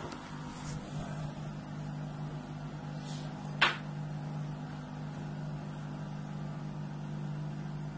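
A steady low hum, with a single sharp click about three and a half seconds in.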